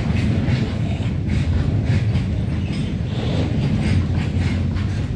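Indian Railways goods train of open wagons and steel-coil flat wagons rolling past: a steady low rumble of steel wheels on the rails, with recurring clicks from the wheels.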